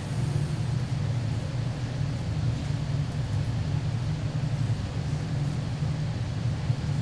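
Steady low hum of room noise, unchanging throughout, with no music or speech over it.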